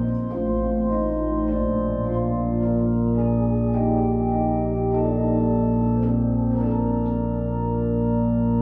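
Johannus Studio II digital organ playing the closing bars of a Baroque chorale prelude: slow, sustained chords that change every second or so over a held pedal bass note.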